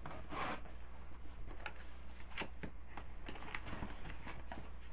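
Cardboard box flaps being opened and handled, with a short rustle near the start and scattered light taps and scrapes.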